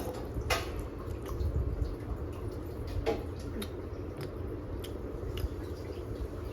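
Wet mouth sounds of someone chewing food, with a few sharp smacks and clicks over a steady low background noise.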